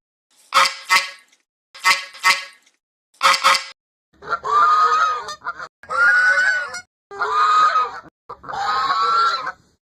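Imitation Canada goose honks. Short honks, mostly in pairs, come over the first three seconds or so, then four longer drawn-out honks of about a second each.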